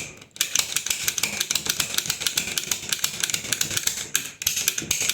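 Lock pick gun snapping rapidly against the pins of a closet doorknob lock, a fast metallic clicking with short breaks just after the start and about four seconds in.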